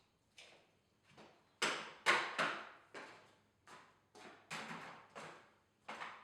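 Irregular knocks and clanks from work on a garage door's torsion spring shaft hardware: about ten sharp strikes with short decaying tails, the loudest pair about two seconds in.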